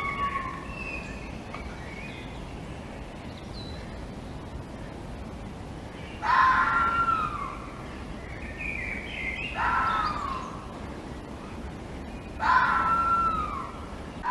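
Red fox screaming: three drawn-out cries that fall in pitch, about three seconds apart in the second half. Fainter high chirps come between them over a steady background hiss.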